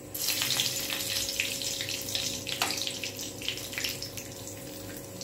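Whole spices (cinnamon, fennel seeds, cardamom and bay leaf) hitting hot oil in a metal kadai and sizzling with many small crackles. The sizzle starts suddenly just after the start, is loudest for the first couple of seconds, then eases off.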